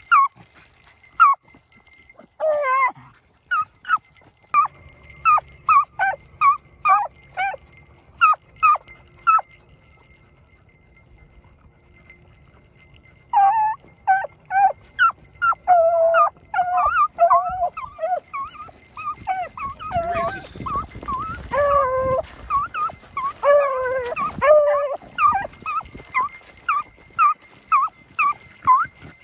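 Beagles baying on a rabbit's trail: short, repeated yelping bays, about two a second at first. After a pause of about three seconds, several dogs open up together from about halfway in, their bays overlapping thickly.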